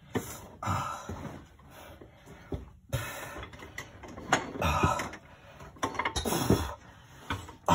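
A man grunting and groaning with strain in several short bursts while taking the weight of a transmission, with a sharp knock about three seconds in.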